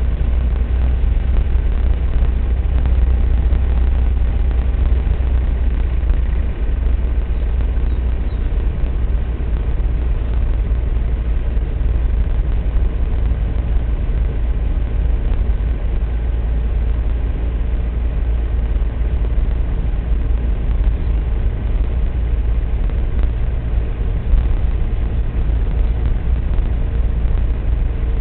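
A car driving along, its engine and road noise making a steady low rumble.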